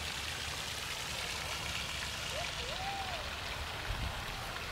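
Pond aeration fountain spraying water that splashes back onto the pond surface, a steady even hiss of falling water.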